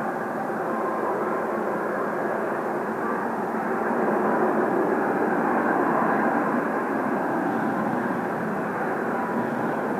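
Jet noise from Kawasaki T-4 twin-turbofan trainers in flight: a steady rush that swells a little midway and then eases.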